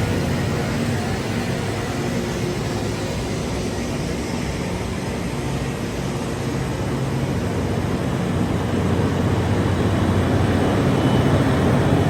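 Diesel railway engine running steadily, easing a little partway through and growing louder again near the end.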